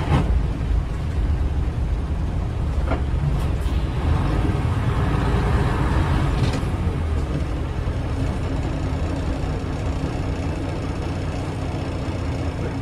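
Cabin sound of a 1997 Nissan Diesel UA city bus with a Fuji 7E body running at speed. Its diesel engine and the road make a steady low drone, and a few short knocks come from the body and fittings.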